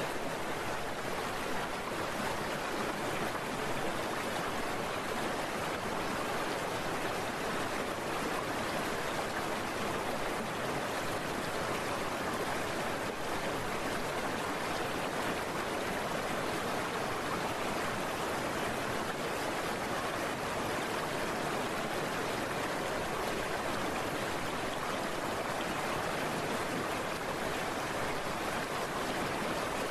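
Heavy rain and wet-road noise from a moving scooter: a steady rushing hiss.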